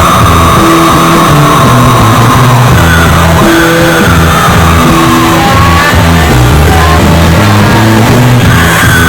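Loud rock music with a steady bass line and a sliding vocal or lead line over it.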